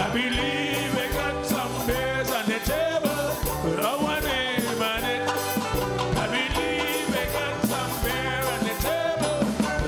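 Live quelbe (scratch) band playing an upbeat dance tune on stage, with banjo, saxophone, electric guitars and drum kit keeping a steady beat.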